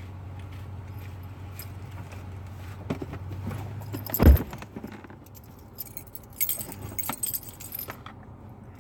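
A steady low hum, then a single heavy thump about four seconds in, after which the hum drops away. Keys jangle and clink several times after it.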